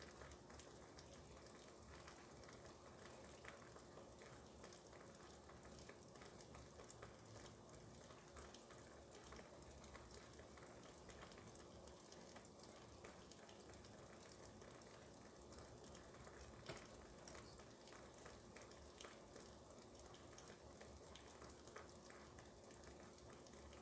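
Faint steady rain pattering outside, an even crackle of many small drops.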